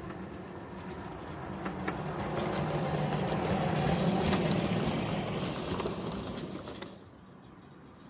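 A 7¼-inch gauge miniature railroad locomotive and its cars passing close by under power, with a few sharp ticks. The sound grows louder as the train nears, peaks about four seconds in, fades as it moves off, and then cuts off suddenly about seven seconds in.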